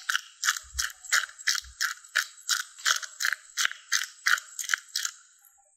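Hand pepper mill grinding black peppercorns: a rhythmic grinding of about three strokes a second that stops near the end.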